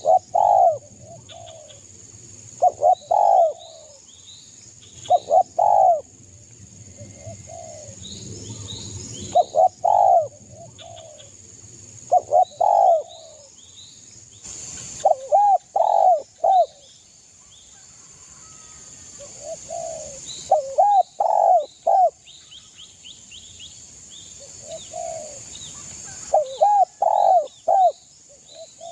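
Spotted dove cooing: loud phrases of two to four coos, repeated every two to three seconds. Fainter, higher chirps of small birds come in between.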